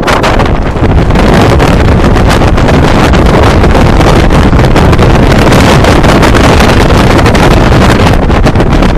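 Heavy wind buffeting the on-board camera's microphone as the Kingda Ka roller coaster train rushes along at high speed, mixed with the rumble of the train on the track. The rush gets louder about a second in and eases a little near the end.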